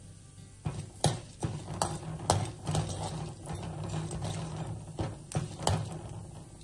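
A spatula stirring and scraping chana dal and urad dal roasting in oil in a pan, the grains rattling: irregular clicks and scrapes over a steady low hum.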